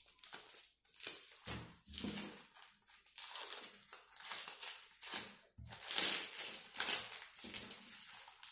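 Clear plastic polybag around a packaged cotton vest crinkling and rustling in irregular bursts as it is handled and the vest is worked out of it, with a few dull knocks.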